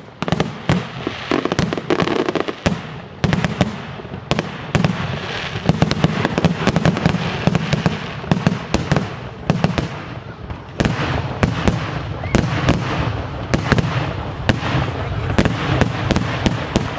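Aerial fireworks display: shells bursting in a rapid, near-continuous string of sharp bangs.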